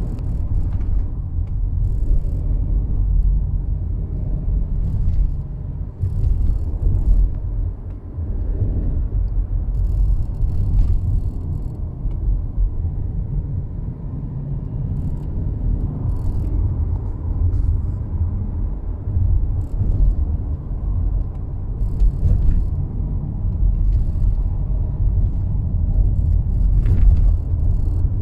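2019 Subaru Forester Sport driving over a rough road: a steady low road and tyre rumble, with short clicking noises every few seconds as the car is jolted. This is the minor noise the owner hears from the left side near a wheel, only over bumps and not tied to the air conditioning or to turning.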